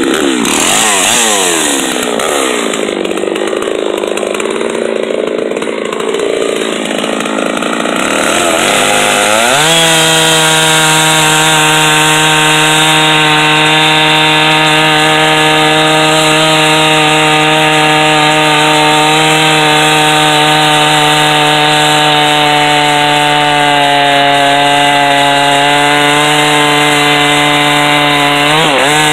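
Two-stroke chainsaw in a chainsaw mill, ripping a poplar log into 1.5-inch boards. Its engine speed rises and falls for the first several seconds, then climbs about ten seconds in to a steady high pitch held at full throttle under the cut, with a brief dip and recovery near the end.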